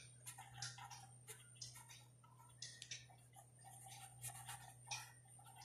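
Pen writing on paper: faint, irregular scratches and ticks as the letters are formed, over a low steady hum.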